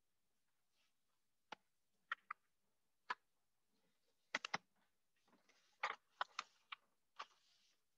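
Faint, irregular clicks of keys being pressed, about a dozen, some coming in quick pairs and clusters.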